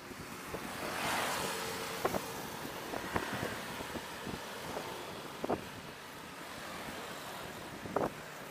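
Wind rushing over the microphone of a camera riding along a road, with traffic noise underneath and a few sharp knocks scattered through.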